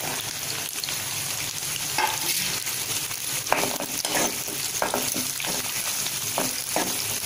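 Shallots, garlic cloves and curry leaves sizzling in hot oil in a non-stick kadai, with a steady hiss. They are stirred, with a dozen or so short scrapes and knocks against the pan from about two seconds in.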